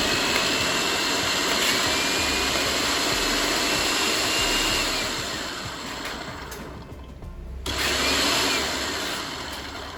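Philips HR2115 blender motor running at full speed with a steady whirring noise. It stops for about a second, starts again, and winds down near the end.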